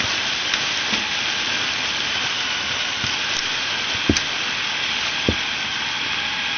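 Loud, steady hiss of noise, with two dull thumps about four and five seconds in.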